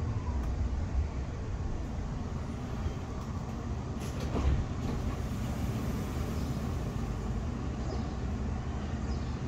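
Steady low rumble and hum inside the passenger cabin of a Škoda ForCity Smart Artic tram, with a brief clatter about four and a half seconds in.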